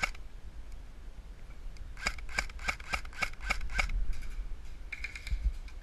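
Airsoft rifle firing a quick string of about seven single shots, roughly three a second, each a sharp snapping click.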